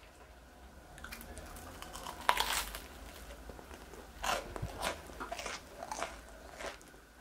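Biting into and chewing a croque monsieur, its crisp toasted bread crunching. The loudest crunch comes a couple of seconds in, followed by a run of crunchy chews.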